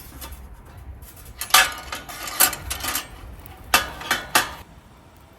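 Camp cookware and utensils being handled: a series of sharp clinks and knocks, four of them loud, between about one and a half and four and a half seconds in.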